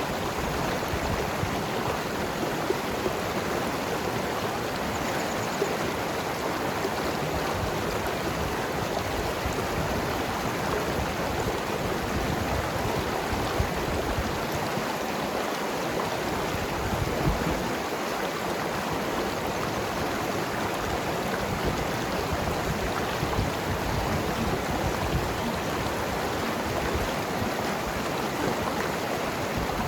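Mountain river flowing and gurgling over rocks, a steady rush of water.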